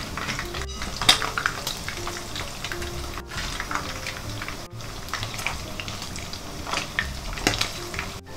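Flour-coated catfish pieces frying in plenty of hot oil in a frying pan: a steady sizzle and crackle. Metal tongs click against the pan and rack now and then, sharpest a second in and again near the end.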